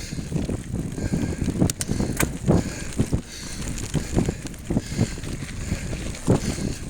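Mountain bike ridden up a rough dirt trail: irregular knocks and rattles from the tyres and frame over a steady low rumble, with some wind on the microphone.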